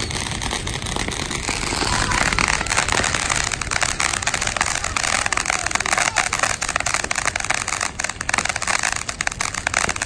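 Ground fountain firework spraying sparks: a steady hiss full of rapid crackles, which swells about two seconds in. A thin high whistle is heard at the start and stops after a second or so.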